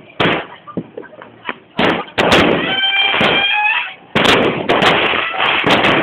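Fireworks and firecrackers going off: a string of loud, sharp bangs with dense crackling between them, and a held whistling tone near the middle.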